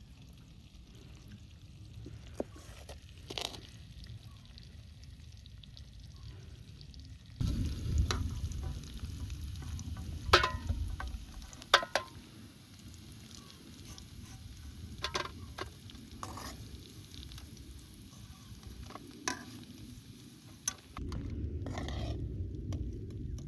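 Food frying in a pan as it is stirred, the spatula knocking against the pan several times. The frying noise comes in suddenly about a third of the way in and again near the end.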